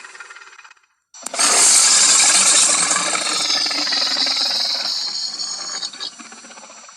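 Film creature sound effect for a Dimetrodon: after a moment of silence, a loud, rough hiss starts suddenly about a second in and slowly tapers off over about five seconds.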